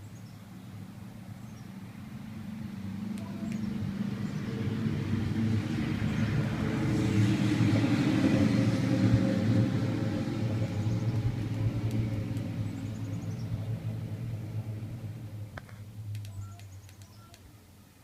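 A road vehicle driving past: a low rumble builds over several seconds, is loudest about halfway through, then fades away.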